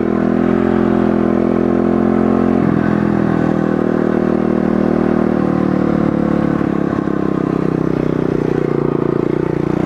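Pit bike's small single-cylinder engine running as the bike rides along. It steps down in pitch about two and a half seconds in, then holds fairly steady with small rises and falls of throttle.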